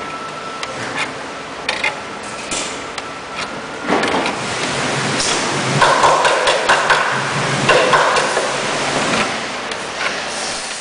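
Thick steel wire being twisted tight with a steel bar to lash a load to a wooden pallet: continuous metal scraping and clicking, louder and harsher from a few seconds in, with brief squeaks.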